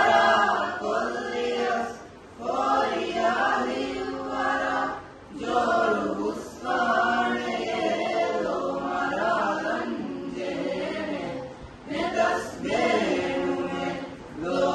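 Mixed choir of girls and boys singing a madhaha, a Maldivian devotional song, unaccompanied, in sustained phrases with brief breaks at about two, five and twelve seconds in.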